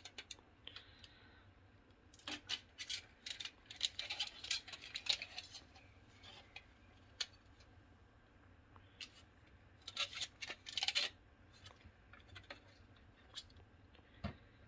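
Thin aluminium foil sheet crinkling as it is handled, in two spells of sharp crackles with a few single clicks between, over a faint low hum.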